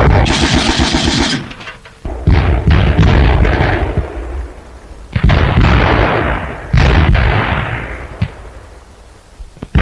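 Heavy battle gunfire on an old newsreel soundtrack: a string of loud shots or blasts, about four of them, each trailing off in a long rumble.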